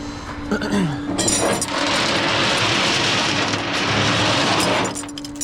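A loud, harsh hissing rush from the tow truck's equipment, lasting about four seconds from about a second in, over a steady hum from the running truck.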